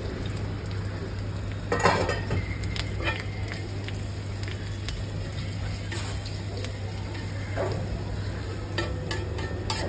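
Chopped boiled-egg omelette mixture sizzling on a large flat griddle, with a metal slotted spatula scraping and tapping against the hot plate as it chops and spreads the egg. The sharpest scrape comes about two seconds in.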